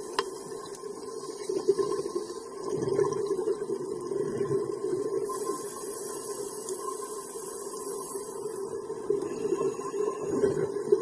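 Underwater ambience heard through a dive camera: a steady muffled hiss with swells of scuba exhaust bubbles rising from the divers' regulators.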